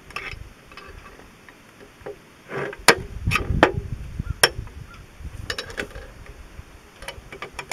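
Sharp metallic clicks and scrapes as a screwdriver works the return springs of a tractor disc brake's ball-ramp actuator back into place on its steel plates. The clicks come in a cluster from about two and a half to five and a half seconds in, with a few more near the end.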